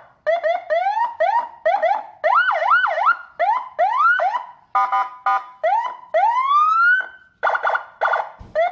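Senken CJB100BD electronic vehicle siren cycling through its tones. It gives rapid short rising chirps, a pair of up-and-down wail sweeps about two seconds in, short blasts of a steady horn tone around five and again near eight seconds, and one long rising sweep just before seven seconds.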